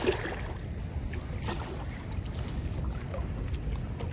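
Steady low rumble of rushing spillway water, with wind buffeting the microphone.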